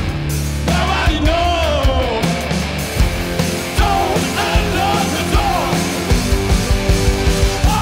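Rock band playing live: electric guitar, keyboards and drum kit with a steady beat, and a male lead singer's voice over the music.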